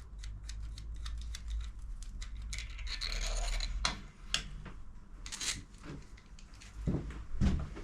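Metal fittings being handled and worked loose by hand on a motorcycle frame: light clicks and scrapes, a short rubbing scrape about three seconds in, and two dull thumps near the end.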